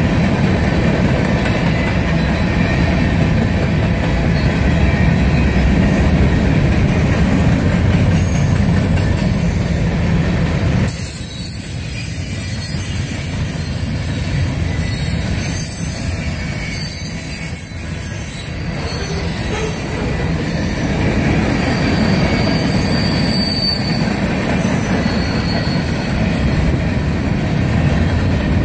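Freight cars of a long CSX manifest train rolling past at close range: a steady rumble of steel wheels on the rails with a high wheel squeal over it. The low rumble eases about eleven seconds in while the squeal carries on.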